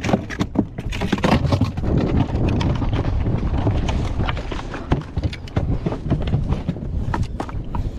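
Wind buffeting the microphone, with irregular knocks and clatter from gear being handled on an inflatable boat.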